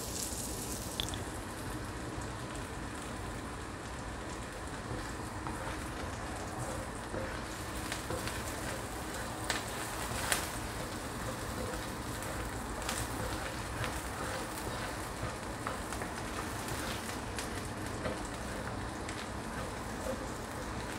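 Sliced shallots, garlic and ginger sizzling steadily in hot oil in a wok, with a few light clicks of a spatula stirring against the pan.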